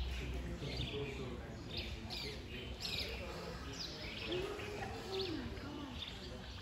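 Small birds chirping: short, high, falling calls repeated every half second or so, over faint distant voices.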